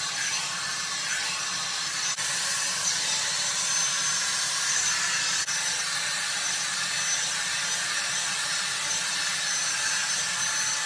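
Hot-air dryer brush running steadily: a fan motor hum under a constant rush of blown air.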